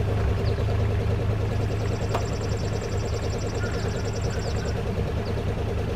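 An engine idling steadily, with a rapid, regular high-pitched ticking for about three seconds in the middle.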